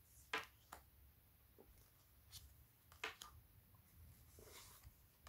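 Faint, short brushing strokes of oracle cards sliding against each other as they are moved off the front of a hand-held deck one after another, a few times with pauses between.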